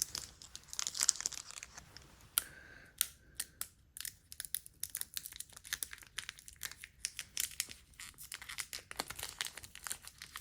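Crinkling foil booster-pack wrappers and packaging being handled, a rustle at first, then a dense run of sharp crackles and clicks from about halfway in.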